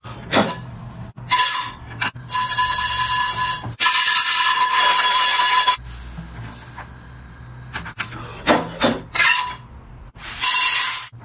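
Rasping, scraping strokes on a honeycomb-textured stainless steel frying pan, several in a row, each carrying a squealing ring; the longest stretch lasts about four seconds near the middle, with shorter strokes near the end.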